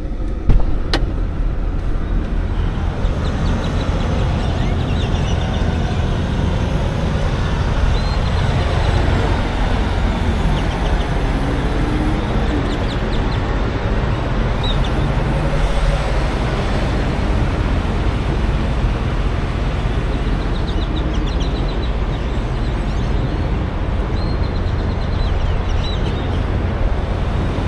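Steady low rumble of idling diesel semi trucks, with a thump about half a second in and faint short high chirps at intervals.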